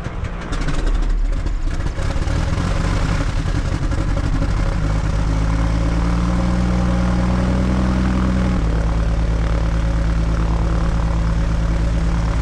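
Piper Seneca III twin's piston engines running on the ground at low power, a steady propeller-and-engine drone. The engine note steps up about five seconds in and drops back a few seconds later.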